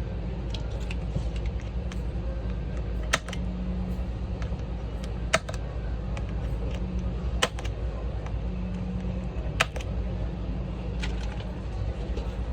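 Sharp, short clicks of hard objects, four of them clear, about two seconds apart, over a steady low hum.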